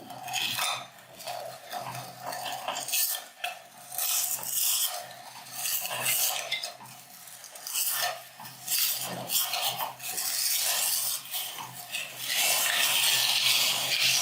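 Rice cake being crushed in a grinder: irregular crunching and scraping. It turns into a louder, steadier rasp near the end.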